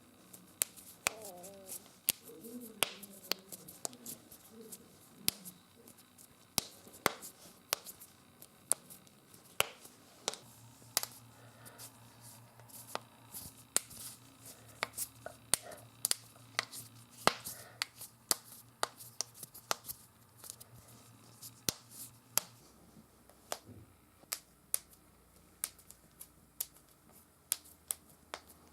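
Human joints being cracked: a long series of sharp pops and clicks, roughly one or two a second, some much louder than others.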